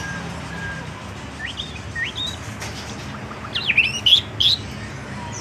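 A bird chirping: a couple of rising whistled notes, then a louder burst of quick sharp chirps about three and a half to four and a half seconds in.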